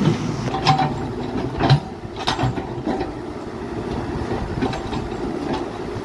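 Caterpillar hydraulic excavator's diesel engine running steadily while it digs, with several sharp clanks from the boom and bucket, mostly in the first half.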